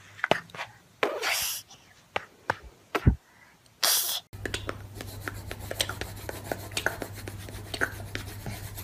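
A toddler making beatbox-style mouth sounds: sharp pops and short spitting hiss bursts with pauses between them. About halfway through the sound changes to a steady low hum with a fast, irregular run of small clicks and scratches.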